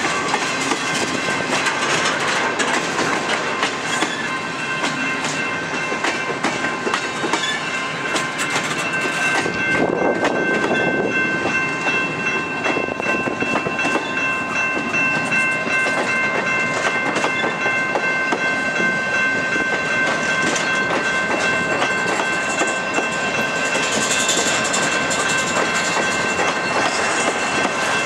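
A freight train of empty intermodal well cars rolling steadily past, its steel wheels clattering over the rail joints. Steady high-pitched ringing tones sound over the rumble throughout.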